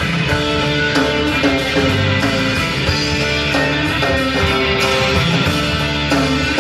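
Rock band playing an instrumental passage between sung verses, with guitar to the fore over bass and drums keeping a steady beat.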